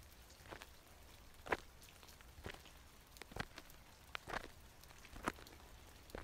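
Footsteps of a person walking slowly, short crunching steps about once a second, over a steady low rumble.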